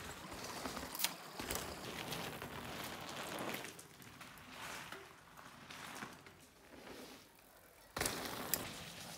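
Mountain bike, a Marin Rift Zone Carbon 29er, rolling over a gravel and dirt forest trail: crunching tyre noise with scattered clicks and rattles. It is louder in the first few seconds, fades in the middle, and comes back suddenly louder near the end.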